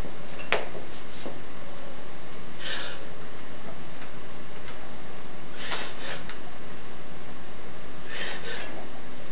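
A person breathing hard: three sharp, hissing breaths about two and a half seconds apart, with a few light clicks, over a steady background hiss.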